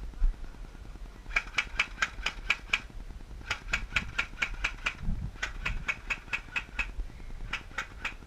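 Airsoft electric gun firing in full-auto bursts: four strings of sharp, evenly spaced shots at about five a second, with short pauses between them and a brief last burst near the end.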